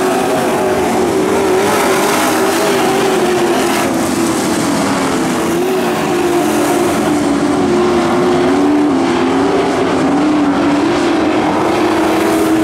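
Dirt-track pro trucks racing, their engines running hard with the pitch rising and falling as they go through the turns and down the straights, over a steady roar of engine and track noise.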